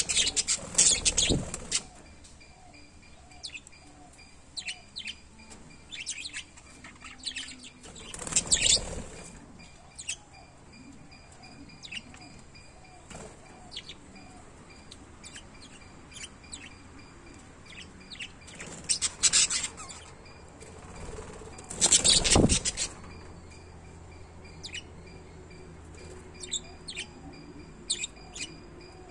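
Pet lovebirds chirping: short, sharp, high chirps scattered irregularly throughout. About four louder fluttering bursts break in: near the start, about a third of the way in, and twice in the last third.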